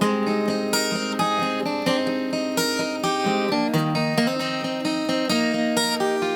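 Acoustic guitar strummed in a steady rhythm between sung lines, the chord changing a little past halfway.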